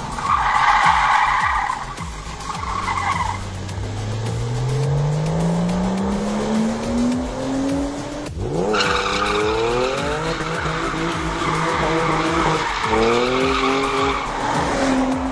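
BMW 7 Series sedan drifting on paving: tyres squealing at first, then the engine revving up in a long rise. After a cut, the engine revs up and down and holds high revs while the tyres spin.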